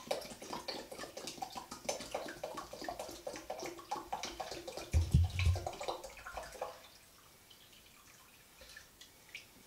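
Water poured from a plastic bottle into a stainless steel pot, the pouring stopping about seven seconds in. A low thump comes around five seconds in.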